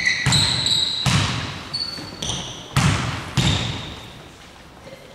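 A basketball bouncing on a hard court, with about five knocks over the first three and a half seconds, along with short high squeaks typical of sneakers on the floor. The sound dies down towards the end.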